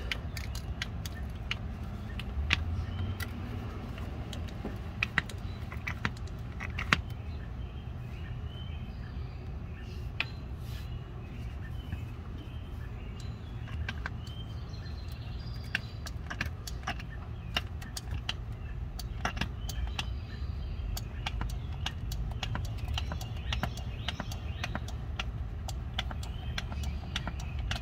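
Plastic bottle-top hand pump being worked to push transmission fluid through a tube into a manual gearbox: scattered light plastic clicks and knocks, over a steady low hum in the background.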